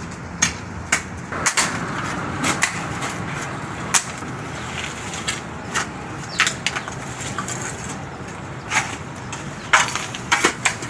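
Shovels and a hoe digging into soil, with irregular knocks and scrapes as the blades strike and drag through the earth.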